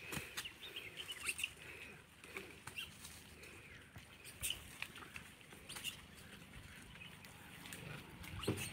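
Faint rustling and crackling clicks of movement through grass and dry leaves, with scattered short high chirps.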